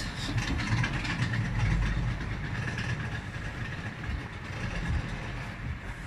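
Road traffic: a passing motor vehicle, its engine and tyre noise fading away toward the end.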